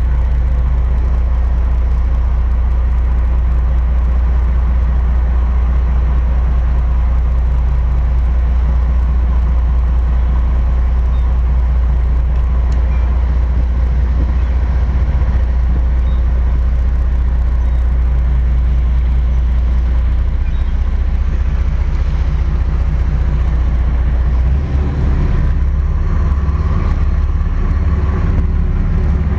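Twin Cummins QSC 600 hp marine diesel engines driving Hamilton water jets, running at low speed with a steady low drone. About twenty-five seconds in, the drone turns uneven and pulsing.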